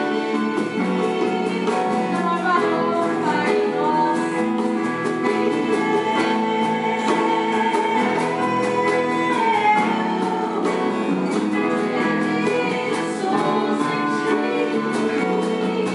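Gospel worship song: singing over strummed acoustic guitar, playing steadily without a break.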